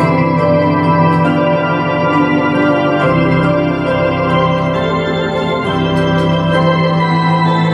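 Organ playing a hymn tune in sustained chords, with the bass note changing about three seconds in and again near six seconds.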